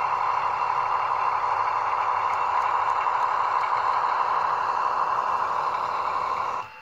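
Märklin H0 model freight train running past: a steady rolling rattle of metal wheels on the track, with a few faint clicks, cutting off abruptly near the end.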